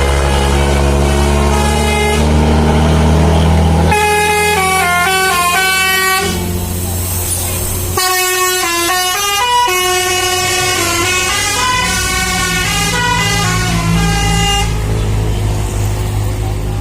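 Bus telolet horn playing quick tunes of stepping notes in two runs, over the steady low running of the bus engine.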